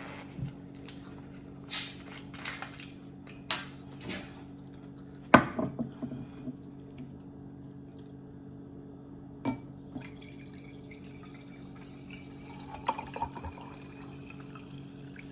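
A person eating close to the microphone: scattered wet chewing and lip-smacking sounds, the loudest about five seconds in, over a steady low hum.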